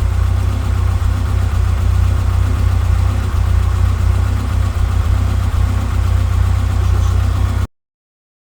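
Mk1 Ford Escort engine idling steadily, run up to temperature to test the new thermostat and cooling fan switch. The sound cuts off abruptly near the end.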